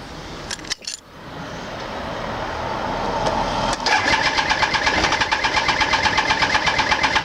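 Triumph T595 Daytona 955i's three-cylinder engine being cranked on the electric starter: a couple of clicks and a rising hum, then about three seconds of fast, even starter cranking that stops abruptly without the engine catching. The bike doesn't want to start.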